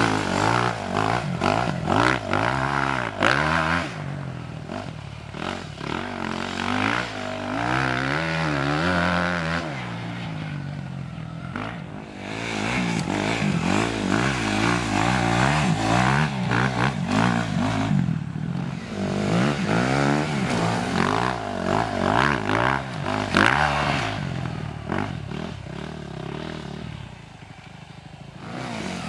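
Suzuki RM-Z250 motocross bike's four-stroke single-cylinder engine being ridden hard, revving up and dropping back again and again as the rider works the throttle through the track.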